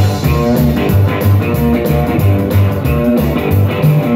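Live rockabilly band playing an instrumental intro: hollow-body electric guitar over upright double bass and drum kit, with a steady boogie beat.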